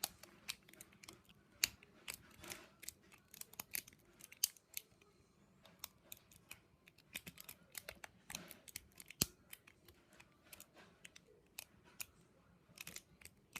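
Half-ball lock pick raking in the control-key cylinder of an Abus 78/50KC combination padlock: fast, irregular, light metallic clicking and scraping, with a few sharper clicks.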